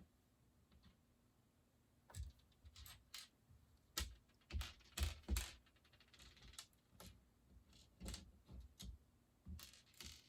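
Plastic Lego pieces clicking and clattering as they are picked out and handled, in irregular light taps with a short run of quick rattling clicks a little past halfway.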